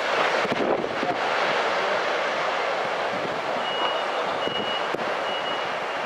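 Steady rush of breaking surf and whitewater washing in. From about three and a half seconds in, a high single-tone beep repeats about every 0.7 s: a vehicle's reversing alarm.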